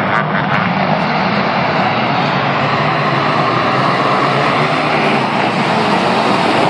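A pack of winged sprint cars racing on a dirt oval, several engines running hard at once in a steady, loud, dense drone.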